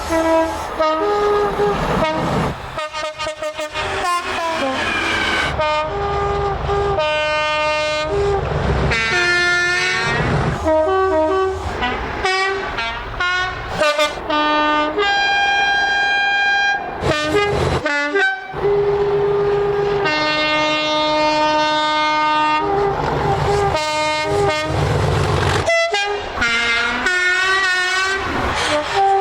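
British train horns sounded one after another, many as two-note high-low toots and some as long held notes, a few sliding in pitch. The rumble of the trains runs underneath.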